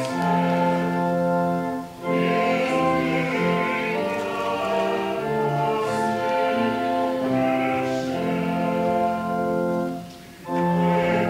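Church hymn music: voices singing in held chords over a sustained accompaniment. There are short breaks between phrases about two seconds in and again near the end.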